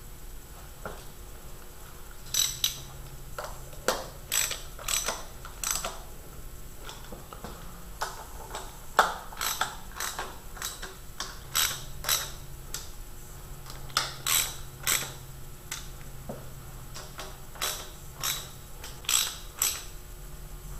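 Hand socket ratchet clicking in short runs with pauses between them as intake manifold bolts are run down and snugged before torquing.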